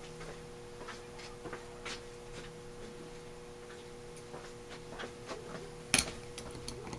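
Faint scattered ticks over a steady low hum, then a sharp metal knock about six seconds in as an adjustable wrench is set on a nut of a Marvel Schebler carburetor, followed by a few light clicks.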